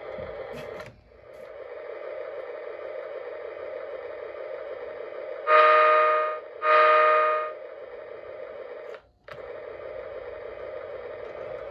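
A model train running on its track, with a steady running sound that cuts out briefly twice. About halfway through, the locomotive's sound system gives two horn blasts of about a second each, close together, the loudest sounds here.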